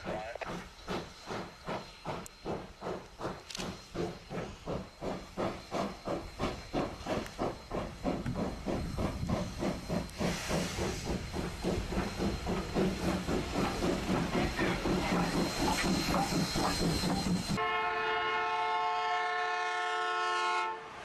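Steam locomotive working hard, its exhaust chuffing at about two beats a second and quickening, with steam hissing. About three and a half seconds before the end the chuffing gives way to a chime whistle sounding one long chord.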